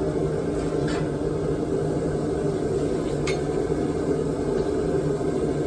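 Blacksmith's forge running steadily, a dense even hum, with two faint light metallic ticks about a second and three seconds in.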